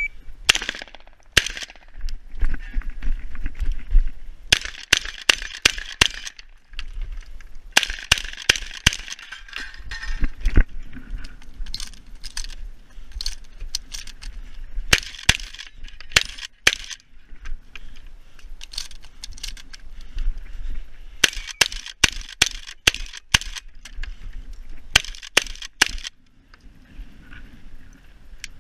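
Shotgun fired rapidly during a practical shooting stage: strings of several shots in quick succession, separated by short pauses between strings. The last shot comes about two and a half seconds before the end.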